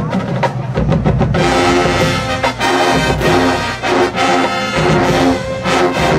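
Marching band playing: the brass section, sousaphones included, holds and shifts big chords while the drumline hits, with a quick run of drum strokes in the first second or so.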